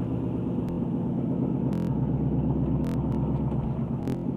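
2012 Ford Mustang GT's 5.0-litre Coyote V8 running with a knock from the bottom end, which the owner suspects might be rod knock. A few sharp clicks stand out over the steady running.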